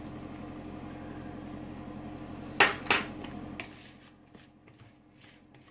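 Small wire whisk working crumbly almond-flour pie dough in a plastic mixing bowl, with two sharp knocks against the bowl a little past halfway and a lighter one just after. A steady low hum runs underneath and fades out near the end.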